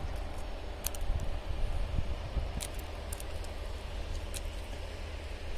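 Open-air ambience: a steady low rumble with a few short, sharp ticks scattered through it.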